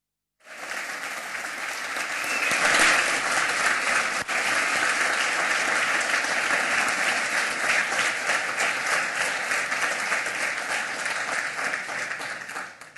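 Audience applauding. The clapping swells over the first couple of seconds, holds steady, then dies away near the end.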